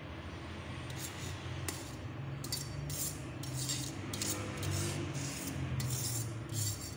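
Metal spoon scraping and knocking against a perforated steel strainer as boiled rice is pushed out of it into a pot, a scrape roughly every half second from about a second in.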